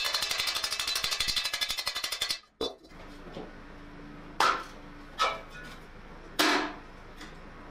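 A hand hammer beating red-hot steel of a helmet on an anvil in a fast, even run of blows for about two and a half seconds. After a short gap come three separate, louder ringing blows on the helmet at the anvil. Soft background music runs underneath.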